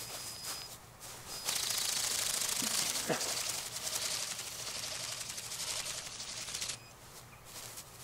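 Bionic Bird flapping-wing drone with its wings beating at full speed, a fast, even clatter that starts about a second and a half in and cuts off suddenly near seven seconds.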